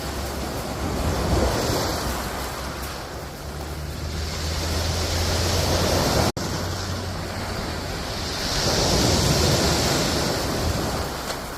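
Sea waves washing onto the shore, the surf swelling and fading every few seconds, with wind rumbling on the microphone. The sound cuts out for an instant about six seconds in.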